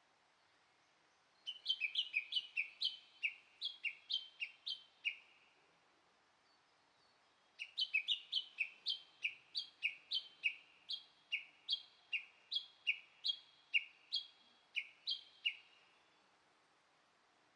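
A bird calling in two long series of quick, repeated sharp notes, about three a second, with a pause of a couple of seconds between the series.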